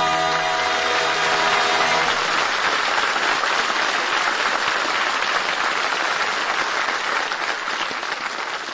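Studio audience applauding, with the orchestra's final held brass chord ringing under it for about the first two seconds; the applause fades out toward the end.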